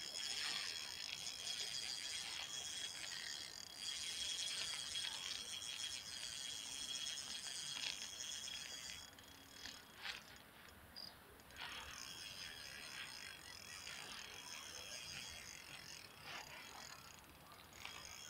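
Spinning reel under the pull of a hooked large wels catfish, its mechanism ticking fast and densely for about the first nine seconds, then fainter, with a few scattered clicks.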